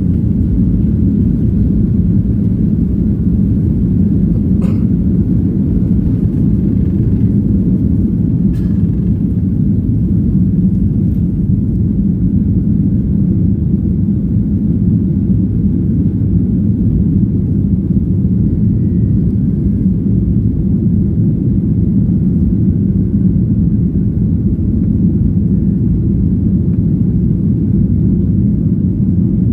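Steady, loud low rumble of jet engine and airflow noise inside the passenger cabin of a Boeing 737-900 in flight, with two faint clicks early on.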